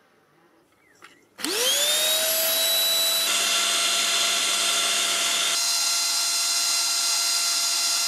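Silvercrest SMS 300 A1 handheld anti-dust-mite vacuum cleaner switching on about a second and a half in: its motor spins up with a quickly rising whine, then runs steadily with a high-pitched whine over a hiss of air. It is loud, about 87 dB(A) at 15 cm.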